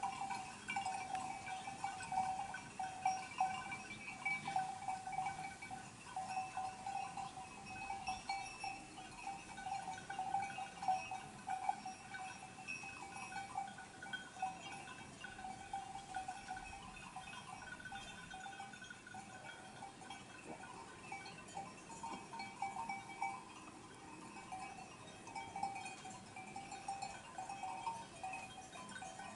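Bells on a grazing flock of sheep, many at once, tinkling and clanking irregularly without a break.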